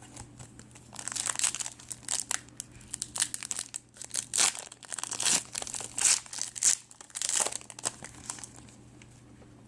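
Plastic foil wrapper of a trading-card pack crinkling and tearing as it is opened by hand, in irregular crackly bursts for several seconds.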